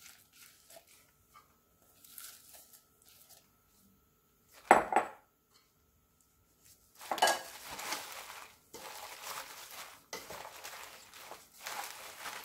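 A sharp clink of dishes about five seconds in, then a plastic-gloved hand tossing raw napa cabbage with chili seasoning in a stainless steel bowl: continuous wet rustling of leaves and crinkling of the glove.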